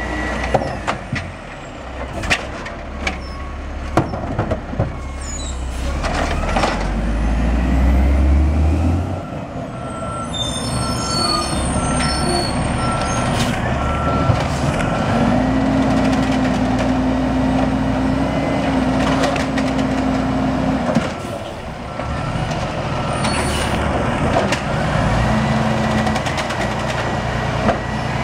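Automated side-loader garbage trucks dumping curbside carts: a series of sharp knocks and bangs as the carts are slammed against the hopper, with the diesel engine revving up to drive the hydraulic lift arm. A steady, evenly spaced warning beep sounds midway.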